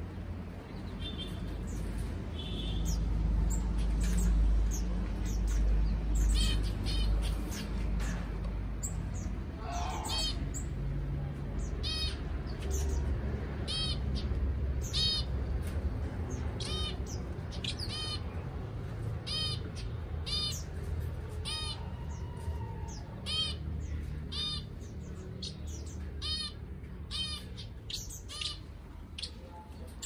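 Small aviary finches calling: short, repeated chirps, a few at first and coming more often from about ten seconds in, over a low rumble.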